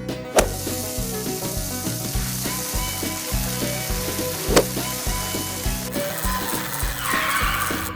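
A steady sizzling hiss, like food frying, over children's background music with a steady beat, with two sharp clicks, one near the start and one about halfway through.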